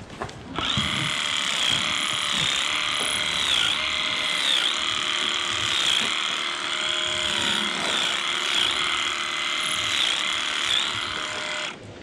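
Electric livestock clippers running while trimming a cow's tail switch: a steady, high-pitched motor whine that dips briefly in pitch several times. It starts about half a second in and cuts off just before the end.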